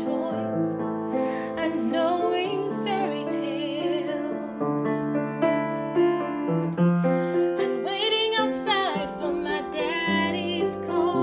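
A soprano singing with vibrato, accompanying herself on a Strauss upright piano with held chords; her voice climbs highest a little past the middle.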